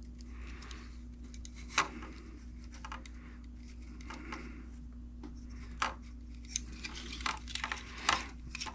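Hands handling a small plastic Mini-Z RC car and its body shell: soft rubbing with sharp plastic clicks, one about two seconds in and a quick run of them near the end.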